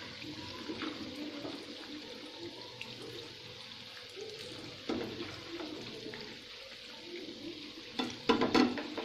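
Carrot malpua batter fritters deep-frying in hot oil, a steady sizzle, with a few soft clinks of a metal slotted spoon as the fritters are turned over.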